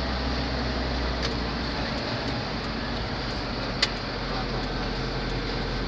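Steady engine and road noise heard inside a moving car's cabin, with a sharp click about four seconds in.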